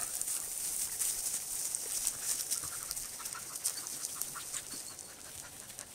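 Norwegian Elkhounds shuffling close around a seated person in dry grass, panting, with many quick light clicks and rustles over a steady high hiss.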